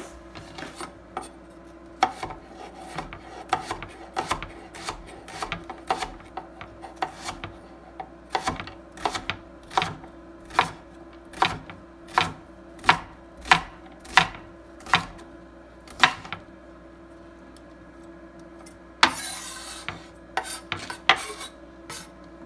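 Kitchen knife chopping spring onion on a wooden cutting board: a series of sharp knocks, falling into a steady rhythm of about one and a half a second midway. Near the end comes a brief rasping noise, and a steady faint hum runs underneath.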